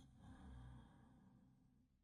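Near silence in the pause between snores, with a faint low sound fading away over the first second or so.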